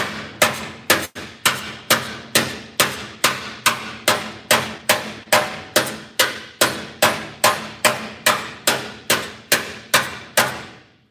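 Spoon hammer slapping the sheet metal of an aftermarket VW Beetle fender with no dolly behind it: a steady, even run of about two and a half strikes a second, each ringing briefly, stopping about ten and a half seconds in. The blows are knocking down a high ridge to level the panel.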